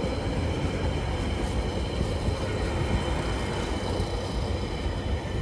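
Empty TQAY container flat wagons of a Tasrail freight train rolling past, a steady rumble of steel wheels on the rails.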